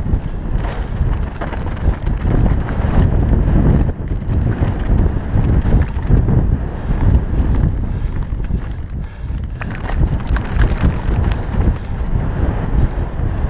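Wind buffeting a helmet-mounted GoPro's microphone during a fast downhill mountain-bike descent of a dirt trail, a heavy steady rumble. Frequent sharp clicks and rattles from the bike and trail run through it.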